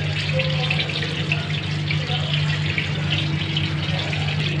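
Batter-coated pakoras deep-frying in hot oil in a steel kadai: a steady crackling sizzle, over a constant low hum.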